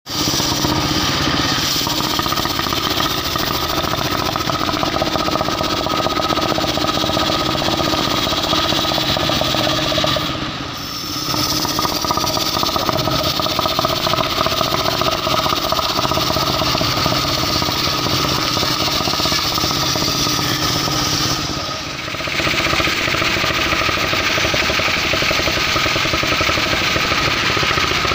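Engine-driven mobile circular sawmill running steadily under load while sawing mahogany, with a harsh, noisy whine over the engine. The sound dips briefly twice, about ten seconds in and again about twenty-two seconds in, and is brighter and hissier after the second dip.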